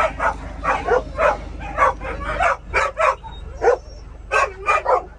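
Dogs barking and yipping in a quick string of short barks, about three a second, inside the daycare bus. A low engine hum runs underneath and drops away about halfway through.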